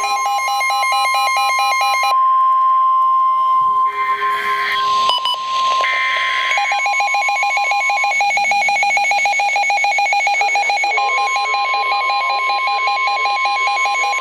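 NOAA Weather Radio warning alarm, a steady 1050 Hz tone, with fast electronic beeping from alert receivers sounding over it. The beeping stops about 2 s in and comes back about 6.5 s in. The steady tone drops out for a few seconds past the middle. The alarm signals a severe weather warning about to be read.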